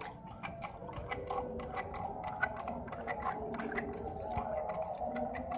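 Miniature metal hand water pump worked by hand: quiet, rapid, fairly even metallic clicking from the handle and its pivots with each stroke, with water starting to trickle from the spout.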